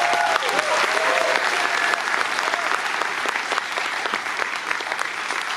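Audience applauding, a dense steady clatter of clapping, with a few high calls from the crowd in the first couple of seconds.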